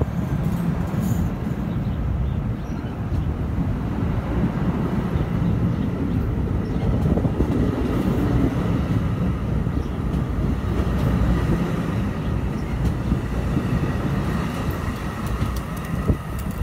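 NJ Transit multilevel passenger cars rolling along a station platform: a steady, dense low rumble of steel wheels on rail, with a faint steady high tone and a few clicks near the end.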